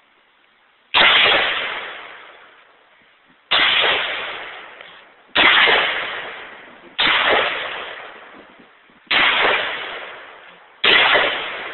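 Del-Ton AR-15 rifle fired six times in slow, unevenly spaced shots, one every one to two and a half seconds. Each sharp report dies away slowly over a second or more.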